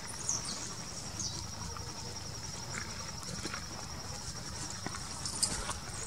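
A steady, high-pitched, finely pulsing insect trill, cricket-like, with a couple of brief, falling high chirps in the first second and a half.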